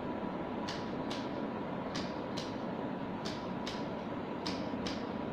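Spring-loaded Activator adjusting instrument clicking, in four quick double clicks about a second and a half apart, over a faint steady hum.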